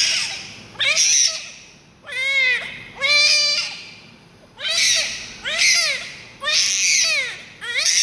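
Newborn baby crying in short, high-pitched wails, about one a second, each cry rising and then falling in pitch.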